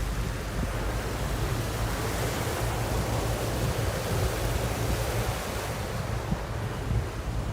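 Steady rush of wind on the microphone and water from a boat under way, with a low rumble underneath, swelling a little in the middle.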